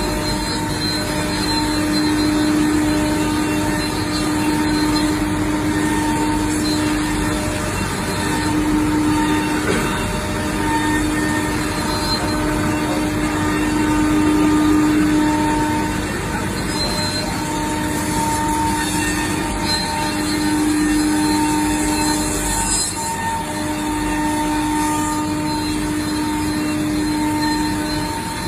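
Selexx Pal CNC router running, a steady machine noise with a hum that swells and fades in stretches of a few seconds.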